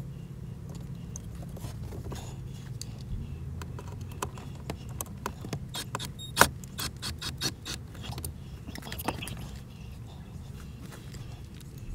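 Small metal hardware and hand tools clicking and clinking as they are handled, a quick run of sharp clicks in the middle with one loud click among them, over a steady low hum.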